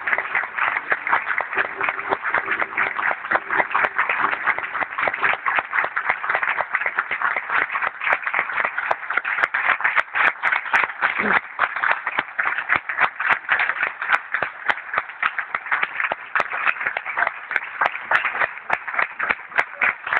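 Large theatre audience applauding a curtain call, dense steady clapping from a full house.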